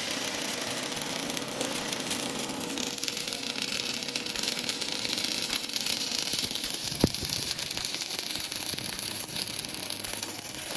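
Stick (MMA) welding arc burning a 4.0 mm electrode on DC current: a steady crackling hiss, with one sharp click about seven seconds in.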